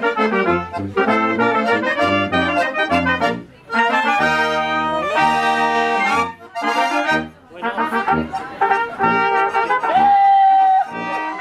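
German oompah band playing live: a tuba thumping out the oom-pah bass under a button accordion and trumpets. The tune pauses briefly twice between phrases, with sustained chords in the middle and a long held note near the end.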